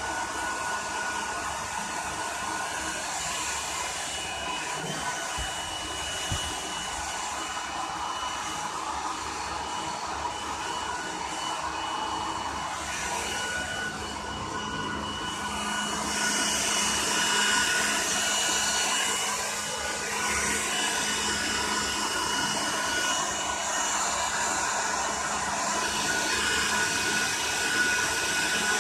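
Hair dryer blowing steadily, a motor whir with a thin whine, getting louder and hissier a little over halfway through.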